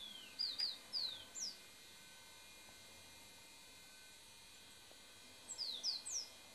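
Small bird calling: a quick series of short, high whistled notes, each falling in pitch, about five in the first second and a half and three more near the end, over a faint steady hum.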